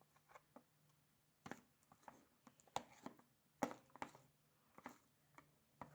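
Faint, irregular sticky clicks and pops of slime made with glue and shaving cream being mixed and kneaded, over a low steady hum.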